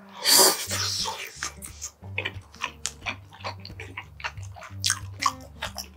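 Close-miked mouth sounds of a man eating: a loud wet bite as the food goes in, then a run of quick chewing clicks and smacks.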